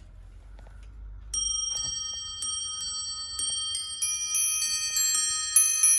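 A 1760s clock's bells chiming a run of struck notes at several different pitches, each note ringing on. A few faint clicks come first, then the notes start about a second in and come faster toward the end. The chime has been set off by a pull on the clock.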